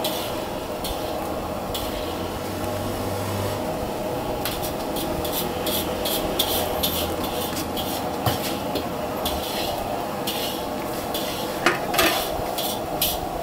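Metal utensils clinking and scraping against a large aluminium wok and pots, a string of clatters starting about a third of the way in, the loudest near the end. Under it the gas burner keeps up a steady roar.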